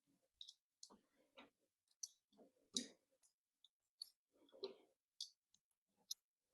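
Faint, scattered clicks and short scrapes of tools and metal parts being handled while a BMX bicycle is taken apart.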